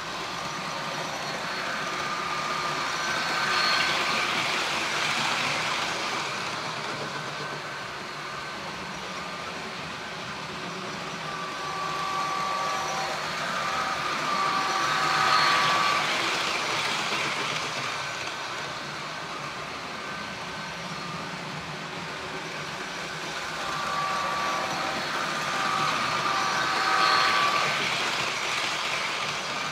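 Model trains running around a layout loop: the rolling noise of wheels and motors swells and fades three times as trains pass close by, about every eleven to twelve seconds. Short high-pitched tones sound near each pass.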